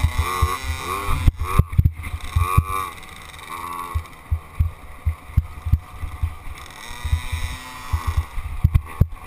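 Small off-road dirt bike engine revving up and down several times as it is ridden over a rough wooded trail, heard through a helmet-mounted camera, with frequent low thumps from bumps and wind on the microphone.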